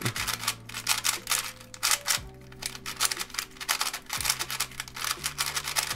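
Old Alpha 3F 3x3 speed cube being turned rapidly, its dry, unlubricated plastic pieces clicking and scraping in quick runs of turns. Background music plays underneath.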